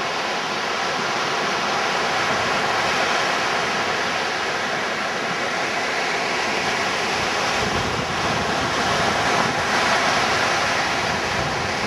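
Surf breaking and washing up the beach in a steady rush, with wind blowing across the microphone and gusting harder about two-thirds of the way in.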